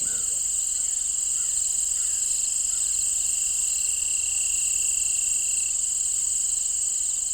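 Steady, high-pitched chorus of insects, like crickets, with a second thin tone joining for about two seconds in the middle.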